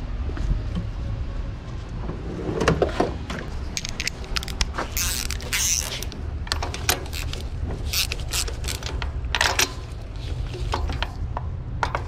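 Hand tools clinking and scraping, and a socket ratchet clicking as bolts are worked on a four-cylinder engine's valve cover, over a steady low hum.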